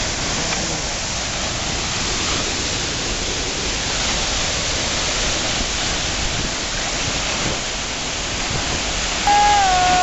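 Suuçuran waterfall in heavy flow: a steady, loud rushing of falling water. Near the end a loud steady tone with overtones suddenly cuts in over it.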